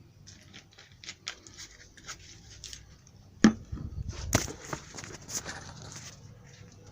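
Shoe-repair bench work: scattered small clicks and taps of tools and materials being handled, with one sharp knock about three and a half seconds in, followed by a short run of knocks and rustling.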